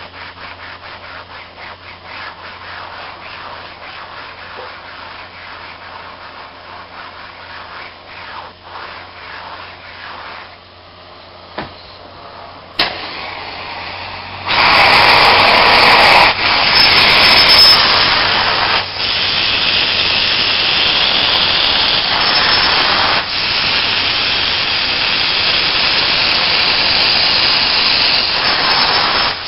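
Upholstery fabric being scrubbed in rhythmic strokes to work in a spotting agent, with a low steady hum behind. About halfway through, a truck-mounted steam cleaning upholstery tool starts spraying and extracting: a loud rushing hiss, cut off briefly a few times between strokes. This is a second pass to lift a stain the first pass did not remove.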